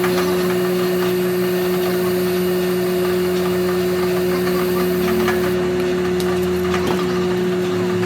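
A workshop machine running with a steady, even hum, with a few light ticks over it.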